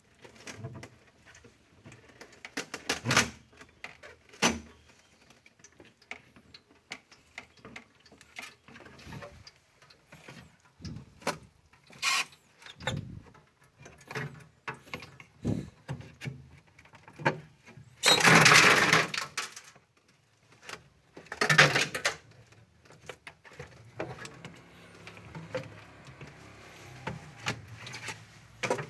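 Frost and ice being scraped and knocked loose inside a refrigerator's freezer: irregular knocks, clicks and scrapes, with a louder scraping rush a little past halfway and a shorter one a few seconds later.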